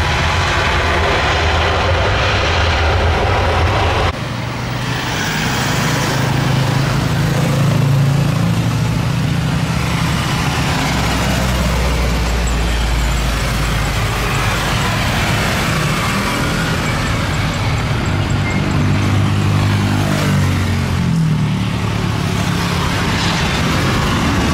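Boeing 737 jet engines. A steady jet roar from an airliner on the runway breaks off suddenly about four seconds in, and is followed by the noise of a Boeing 737-900ER approaching and landing, its engine sound sweeping up and down in pitch as it passes.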